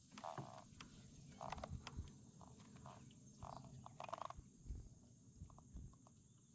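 Faint, steady high-pitched insect drone, with short irregular squeaks through the first few seconds and a few soft low knocks.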